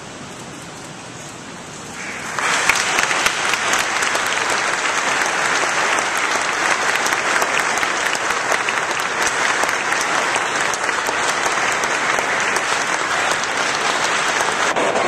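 Audience applauding. The clapping breaks out suddenly about two seconds in and keeps going steadily.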